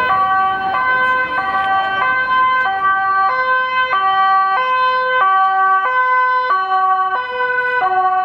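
Two-tone siren of a Dutch emergency vehicle, sounding loudly and steadily and alternating between two pitches about every 0.6 seconds.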